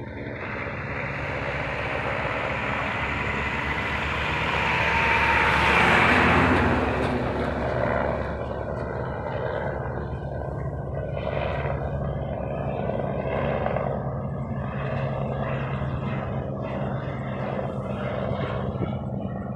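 Helicopter in flight, its engine and rotor noise swelling to a peak about six seconds in, then running on steadily as it flies away along the hillside.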